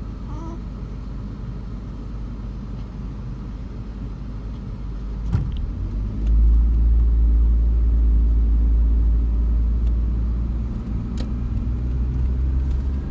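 Car engine and road rumble, steady and low, growing louder and fuller about six seconds in. A sharp click comes about five seconds in and another near the end.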